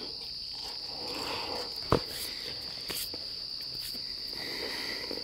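Crickets trilling in a steady high chorus, with one sharp click about two seconds in.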